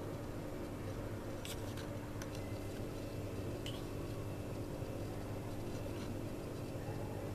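A few faint clicks of a metal spoon scooping soft chocolate spread and scraping it into the dough in a muffin tin, over a steady low hum.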